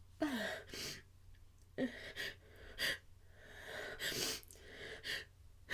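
A person's sneeze build-up: a series of short, quiet hitching gasps and breaths, a few with a brief voiced catch that drops in pitch, as the next sneeze approaches.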